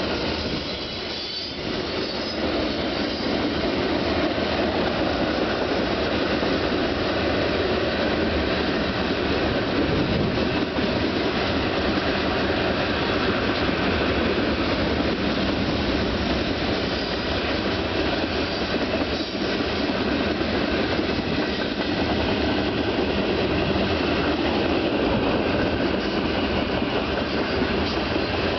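A freight train of railroad tank cars rolling steadily past, with the continuous noise of steel wheels running on the rails.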